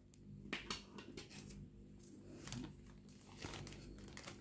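Faint handling noises: scattered light clicks and rustles as potted plants in plastic sleeves are moved on a table and a pair of scissors is picked up.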